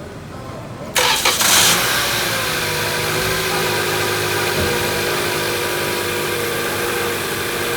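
A 2022 Toyota Camry's engine starts about a second in, catching quickly, then idles steadily. This is its first start after a transmission replacement.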